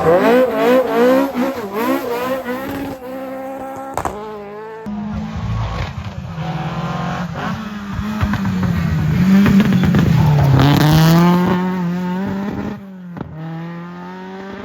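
Rally car engines revving hard, the pitch climbing and dropping again and again through gear changes. The sound breaks off abruptly and switches to another engine a few times.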